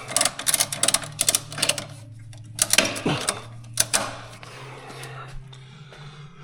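Ratchet strap being cranked tight: rapid runs of ratchet clicks for about two seconds, then two short bursts around three and four seconds in, over a steady low hum.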